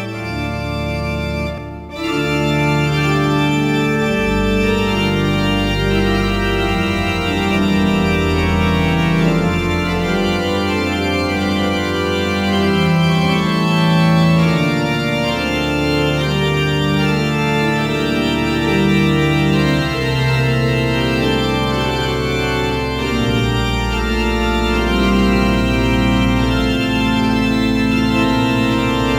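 Organ music: slow, sustained chords over deep held bass notes, with a short break about two seconds in.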